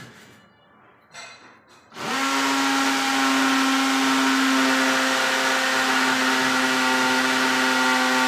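Angle grinder cutting into concrete. After a few light handling knocks, it starts about two seconds in and runs steadily, with a high whine over a harsh grinding hiss.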